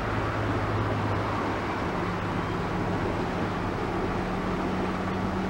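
Boat engine running steadily while under way, a low hum that moves up in pitch about two seconds in, over a steady rushing noise of water and air.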